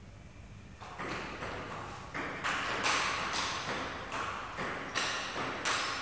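Table tennis rally: the ping-pong ball clicking in turn off the table and the paddles, about two hits a second, starting about a second in after the serve toss. Each hit rings briefly and echoes in the room.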